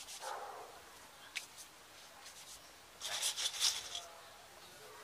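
Quiet scraping and rustling as a stainless steel bowl heaped with mixed snacks is lifted off a wooden table, the loudest part about three seconds in, with a single light click earlier.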